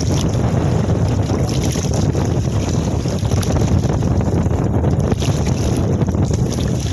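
Wind buffeting the microphone on an open boat at sea, a steady loud rumble, with choppy water around the hull.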